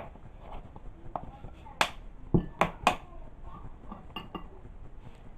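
Kitchen containers and a bowl being handled, giving a few sharp knocks and clinks, most of them close together about two to three seconds in.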